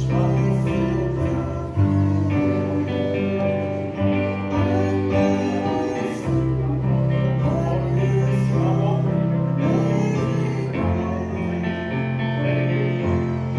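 Gospel music: a voice singing over a steady instrumental accompaniment with deep, held bass notes.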